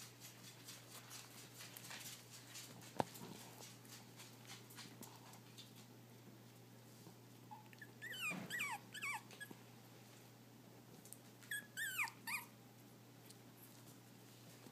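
A young puppy whimpering in two short clusters of high, wavering cries, about eight and twelve seconds in. Before them, faint scuffling and ticking of small paws on bedding.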